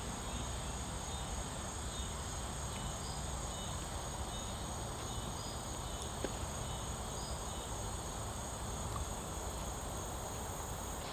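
Insects trilling steadily on one high pitch, with a few faint short chirps, over a low steady rumble.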